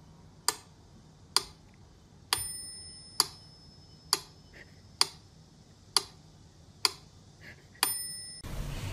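Steady ticking, like a clock: a sharp tick a little under once a second. Twice, about two seconds in and near the end, a tick is followed by a short high ringing tone.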